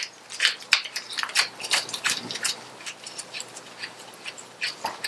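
Light, irregular metal clicks and ticks, several a second and busier in the first half, from hand work on a Harley-Davidson primary drive as a reverse-thread fastener, its threads coated with Loctite, is fitted.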